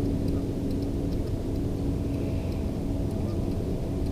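Boat motor running steadily: an even low drone with a constant hum.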